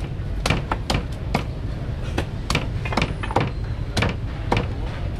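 Heavy cleaver chopping through chicken onto a wooden chopping block: sharp, irregular chops about two a second, over a steady low rumble.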